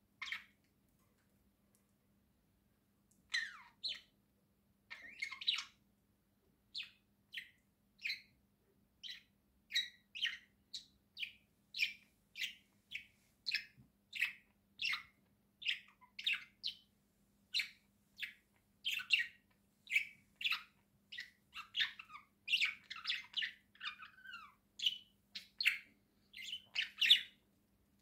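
Budgerigars chirping: a single call at the start, then, from about three seconds in, a steady run of short chirps, one or two a second, that come closer together toward the end. A faint steady hum lies underneath.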